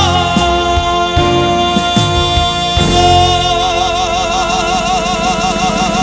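A woman singing one long held high note over live band accompaniment, with a few drum hits early on. Just before the halfway point the note breaks briefly, and when it returns it is held with a wide, even vibrato.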